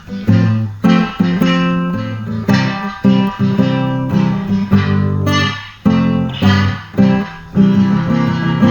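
Instrumental guitar music: plucked notes and chords that ring and die away, over a bass line.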